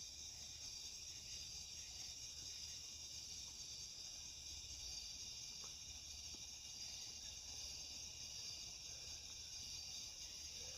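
Faint, steady chorus of night insects such as crickets, a continuous high chirring.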